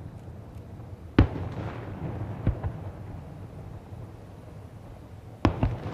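Fireworks display: a loud bang a little after a second in, two lighter bangs about a second later, and a quick cluster of three bangs near the end, over a steady low rumble.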